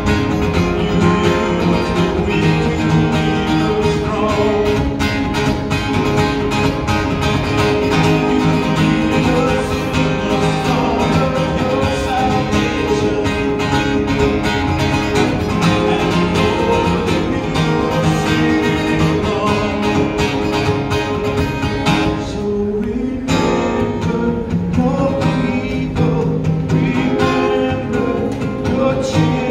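Acoustic-electric guitar strummed and amplified through PA speakers, with a man singing along at the microphone. The strumming thins out briefly about three-quarters of the way through.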